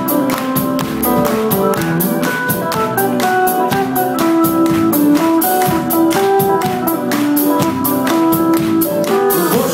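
Live band playing an instrumental intro: acoustic guitar over drums keeping a steady beat, with held melody notes above.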